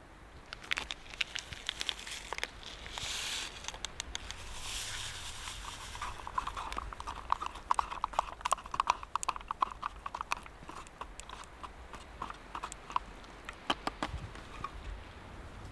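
A few rustling bursts, then a spoon clinking rapidly against the inside of a mug as instant coffee is stirred, for about seven seconds from around six seconds in, with a few louder knocks near the end.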